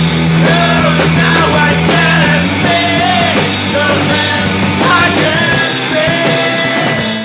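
Indie rock band playing loudly: electric bass, drums and male vocals sung into microphones. The music cuts off abruptly near the end.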